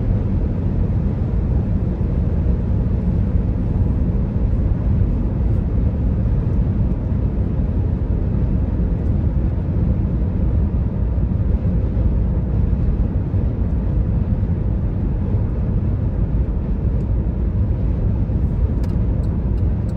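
Steady road and engine noise inside a car cruising at highway speed: a constant low rumble with no separate events.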